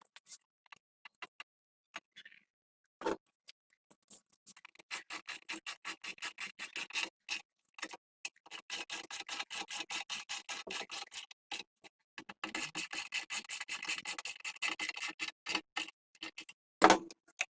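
Quick, even clicking strokes, about four to five a second, in two long runs with a short break between them, after a single knock a few seconds in.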